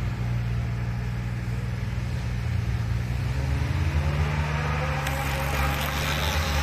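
An off-road competition vehicle's engine under a steady low engine hum, revving up from about halfway through: its pitch rises and it grows louder toward the end.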